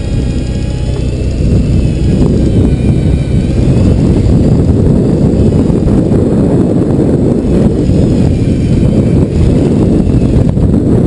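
A boat engine runs under loud, dense low rumble and wind noise on the microphone. A faint high whine, which bends slightly in pitch, comes and goes near the start and again later; it fits the electric reel winding in a hooked fish.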